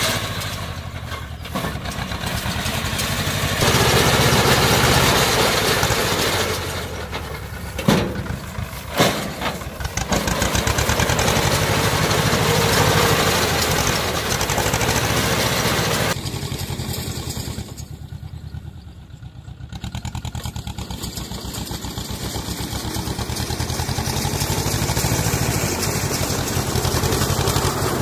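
Old International tractor engine running under load as it pulls a round baler through rice straw, with the baler's machinery working, an engine the driver calls worn out and short of power. Two sharp knocks come about eight and nine seconds in, and the engine sound drops away for a few seconds past the middle.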